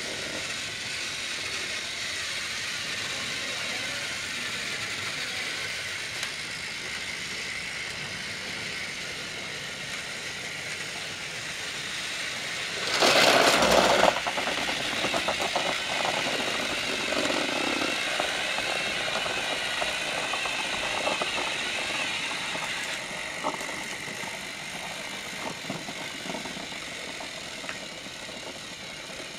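Battery-powered TrackMaster motorized toy trains whirring steadily as they run along plastic track, with a loud clatter lasting about a second midway through.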